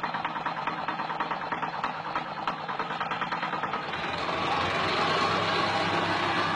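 Small-engine road construction machinery running. A rapid, regular knocking fills the first few seconds, and about four seconds in it gives way to the steady running and vibration of a vibrating plate compactor tamping fresh asphalt around a manhole cover.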